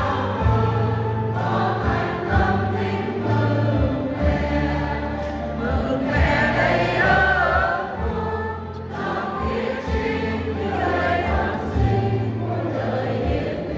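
Choir singing a hymn over sustained bass notes that change in steps, like a slow chordal accompaniment.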